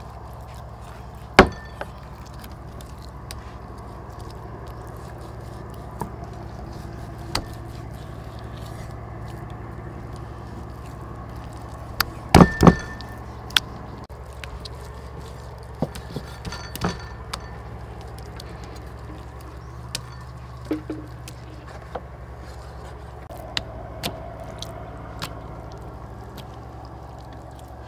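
Cleaver blades knocking now and then against wooden chopping boards as raw beef is sliced. There is a loud knock about a second in, a burst of knocks around halfway, and lighter taps after that, over a steady low hum.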